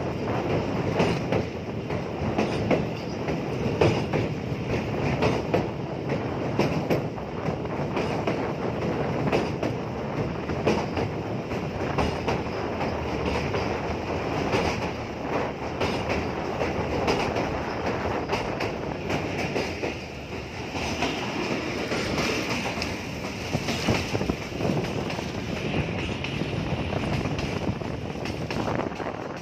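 Passenger coach wheels running at speed over the rails of a steel girder bridge and then onto curving track: a continuous rumble with rapid clickety-clack from the rail joints. Some higher wheel squeal comes in during the second half.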